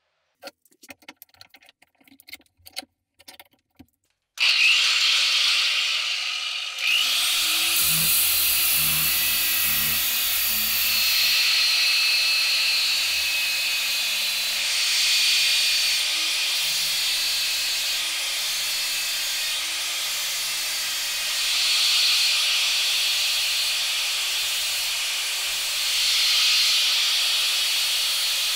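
A few light clicks and taps, then from about four seconds in an angle grinder fitted with a sanding disc on a backing pad runs steadily, sanding rust off a steel sickle blade, its sound swelling and easing as it is pressed on and lifted.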